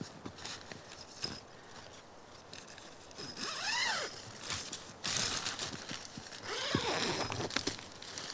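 Handling gear while pitching a tent: rustling, scattered clicks and knocks, and two short squeaks that rise and fall in pitch, one a little before the middle and one near the end.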